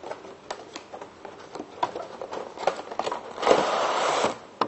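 Clear plastic packaging casing sliding out of a cardboard box, with small clicks and crinkles of plastic and card as the box is handled, then a loud scraping rustle lasting about a second, starting about three and a half seconds in, as the casing is drawn out.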